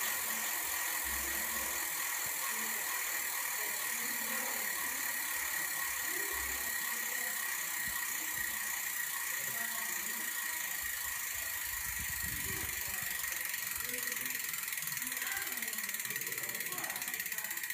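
Shimano Dura-Ace 9000 C50 rear wheel's freehub ratchet clicking as the wheel spins freely. The clicks come so fast and evenly that they run together into a steady buzz.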